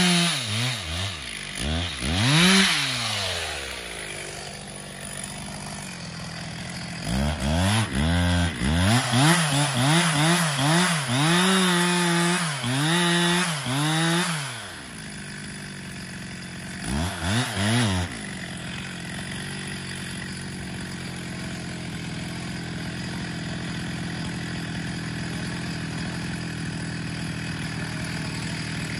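Stihl MS 361 single-cylinder two-stroke chainsaw sawing through pine windfall, its engine revving up and dropping back in repeated bursts. It falls to a steady idle between cuts and keeps idling steadily from about 18 seconds in.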